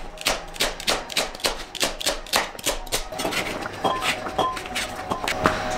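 Chef's knife chopping celery on a plastic cutting board, about four quick chops a second, then slower, lighter cuts in the second half.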